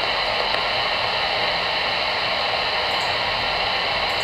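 Steady static hiss from a Voyager CB radio's speaker, tuned to channel 22, between transmissions with no voice on the channel.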